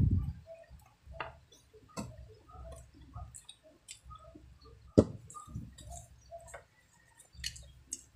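Close-up eating sounds from chewing squid adobo: scattered wet mouth clicks and lip smacks, with two sharper knocks, one right at the start and one about five seconds in.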